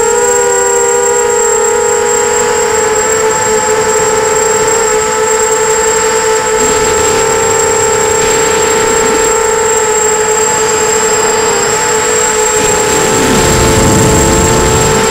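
Brushless motors and propellers of a 250-size FPV racing quadcopter whining at a steady pitch, heard up close through the onboard camera. Near the end the pitch dips briefly and a low rumble swells.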